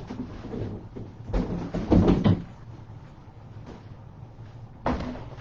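Clunks and knocks of a new bicycle and its cardboard packaging being handled, with a loud cluster of knocks about two seconds in and another sharp knock near the end.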